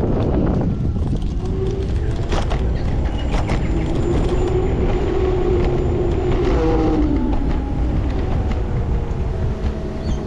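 Wind buffeting the microphone and road rumble while travelling, with a wavering mid-pitched whine in the middle and a few short clicks.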